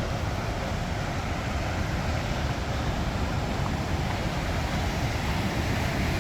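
Fast river water rushing through a narrow rock channel: a steady, unbroken rush.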